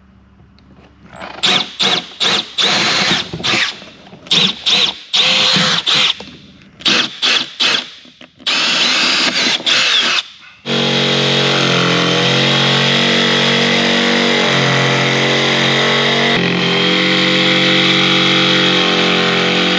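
Cordless drill boring starter holes in the corners of a cutout marked on a boat deck, run in many short trigger bursts and then one longer burst. From about halfway a jigsaw starts and cuts steadily along the line, pausing briefly once near the end.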